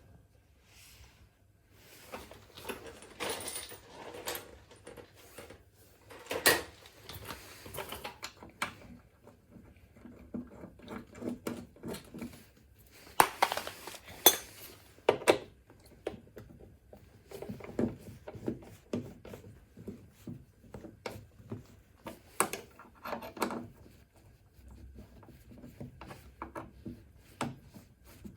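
Irregular metallic clicks, clinks and knocks of hand tools and bolts against the car door's metal as the door lock's retaining bolts are fitted and secured, in scattered clusters with the sharpest knocks about six seconds in and around thirteen to fifteen seconds in.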